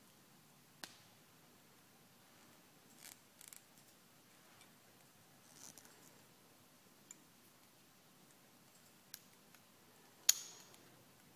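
Small plastic clicks and taps from a plastic toy figure and its parts being handled and fitted in the fingers. The clicks are sparse, with a short cluster about three seconds in and the sharpest, loudest click just after ten seconds.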